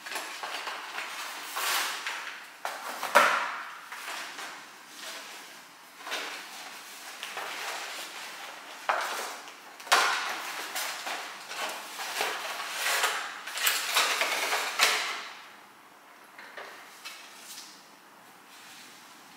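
Rustling and handling of a large gift bag as items are pulled out of it, with a few sharp knocks of objects against each other or the counter, the loudest about three seconds in and another about ten seconds in. It goes quieter for the last few seconds.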